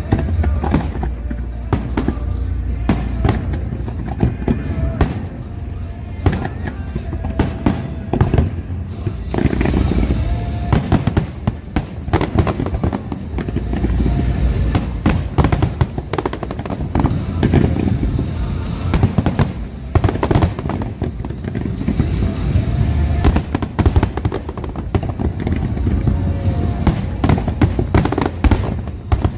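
Large aerial fireworks display: a rapid, continuous run of bangs and crackles over deep booms, with music playing along.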